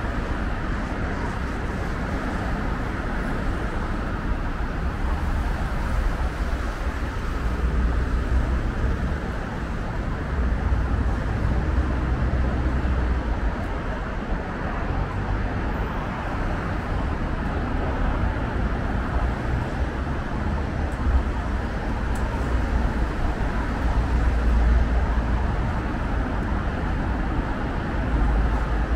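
Steady city road traffic noise from cars passing on a nearby street, with a low rumble that swells and eases every few seconds.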